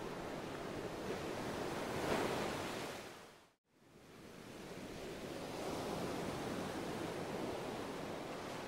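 Ocean surf ambience, a steady wash of waves that swells about two seconds in, fades out to silence about three and a half seconds in, then fades back up.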